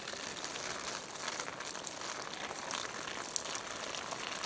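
Water poured out and splashing as something is rinsed: an even hiss with many small irregular ticks.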